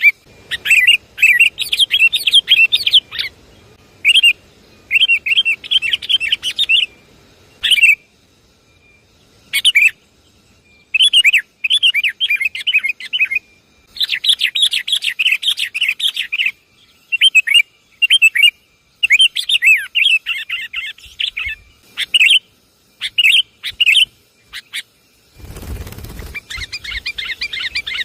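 Sooty-headed bulbuls (kutilang) giving bursts of fast, chattering calls in phrases of a second or two, with short pauses between and a longer pause about a third of the way in. Near the end, a brief rushing noise.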